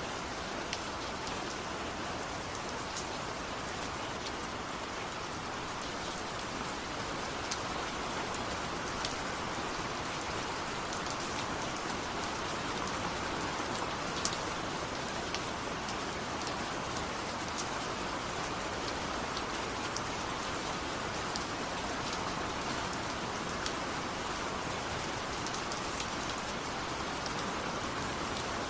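Steady rain falling, an even hiss with scattered sharp drips and drop ticks throughout.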